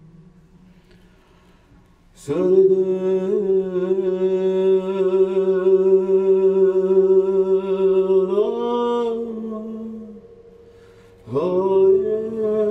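A man's voice held in long droning notes, sounded into a hollow wooden drum shell. After about two seconds of quiet, one long steady note sets in, steps up in pitch near eight seconds and fades out. A second note begins about a second later.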